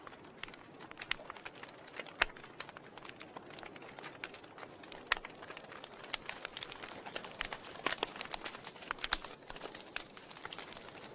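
Wood fire crackling in a fireplace: irregular sharp pops and snaps over a soft steady hiss, with a denser run of louder pops about eight to nine seconds in.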